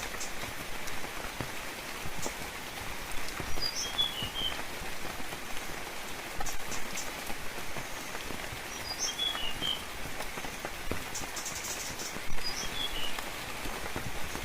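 Steady gentle rain falling, with scattered louder drops. A bird gives the same short chirping call three times, a few seconds apart.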